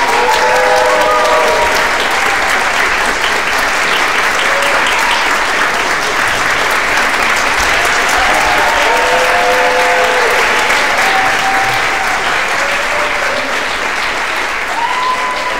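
Audience applauding steadily at the close of an opera performance, with a few voices calling out over the clapping near the start, in the middle and near the end.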